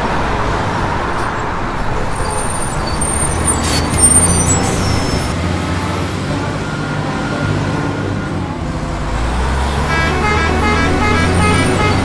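Busy city street traffic: buses and cars running and passing, with engine noise that grows louder about nine seconds in.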